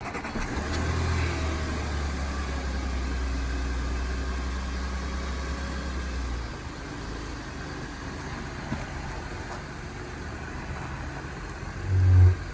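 Audi Q7 with a steady low running hum, then a short, loud low-pitched brake groan near the end.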